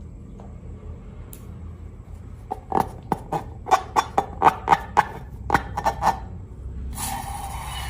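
Slime being squeezed and pressed, giving a quick run of about a dozen sharp little pops from air pockets, then a steady crackling rustle near the end.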